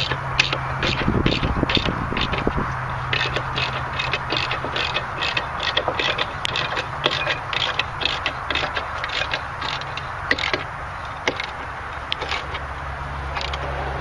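Ratchet wrench clicking in quick runs of strokes as it tightens the jack plate bolts, over a steady low hum.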